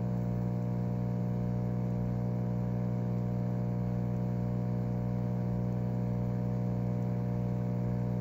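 A steady low machine hum, an even buzzing drone that does not change.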